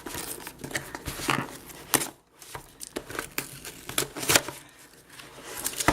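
Packaging being opened by hand: crinkling and tearing of the box and its wrapping, with scattered irregular clicks and crackles.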